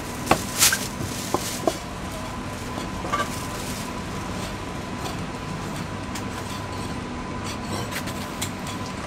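Chinese cleaver knocking on a wooden chopping block while slicing braised goose gizzard: a few sharp knocks in the first three seconds or so, then fainter strokes, over a steady background hum.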